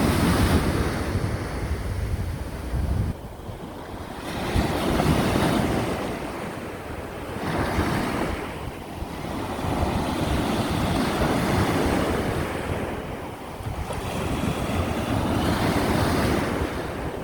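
Sea waves breaking and washing in, swelling and fading every three to five seconds, with wind rumbling on the microphone.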